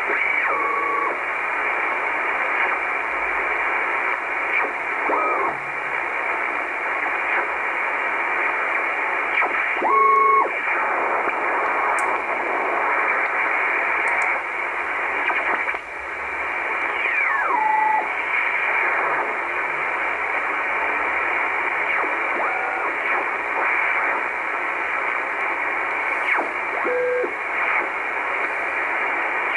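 An Icom IC-R8500 communications receiver in upper sideband mode plays steady shortwave static while its dial is turned across the 19 MHz band, which is empty of signals. A few brief whistles, some of them falling in pitch, pass through the hiss as the tuning sweeps.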